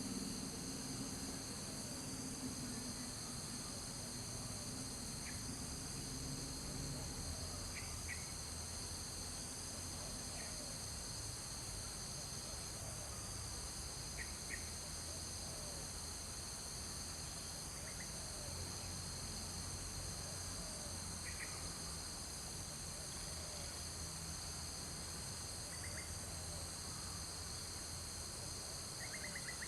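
Steady high-pitched insect chorus, crickets or cicadas, running unbroken, with short high chirps every few seconds and a low background hum.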